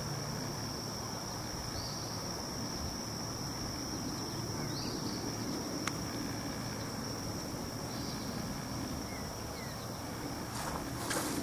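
Insects trilling steadily in one continuous high tone, over a low background rumble, with a few faint bird chirps. A few rustles and knocks near the end.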